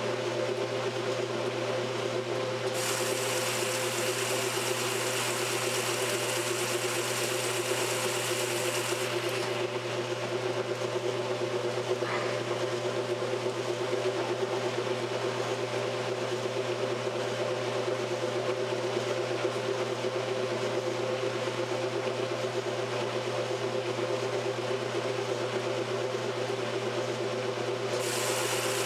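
1968 Kenmore top-load washer agitating a load: a steady motor and drive hum under the splash and swish of water churning in the tub. The swishing grows louder from about three seconds in until about nine seconds in, and again near the end.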